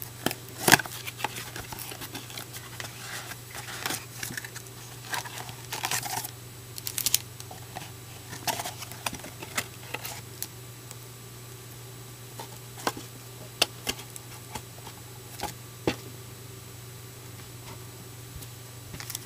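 A trading-card blaster box being opened by hand: crinkling, tearing and sharp clicks of wrapping and cardboard, busiest in the first half and sparser later. A steady low hum runs underneath.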